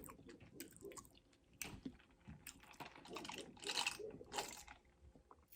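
A person chewing food close to the microphone: faint wet mouth clicks and smacks, a little louder for a moment past the middle.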